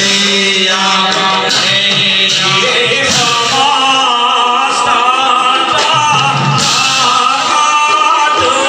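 Dihanam, an Assamese devotional chant: men's voices singing a slow, held melody, a lead voice carried on a microphone with the seated group joining, and brass hand cymbals (taal) keeping time.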